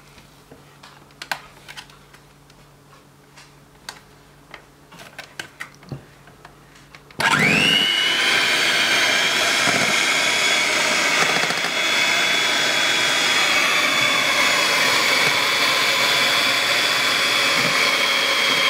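A few light clicks, then about seven seconds in an electric hand mixer switches on with a quick rising whine and runs steadily at a high, even pitch, its twin beaters whisking cake batter.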